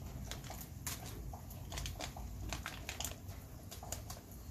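Irregular sharp clicks and metallic ticks, several a second, from hand tools and parts being handled while fitting parts to a 2JZ engine, over a low steady hum.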